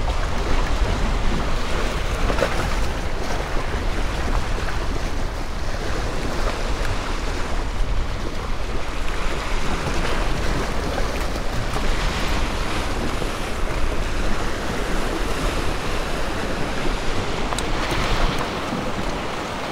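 Waves washing in steadily, with wind buffeting the microphone in a constant low rumble.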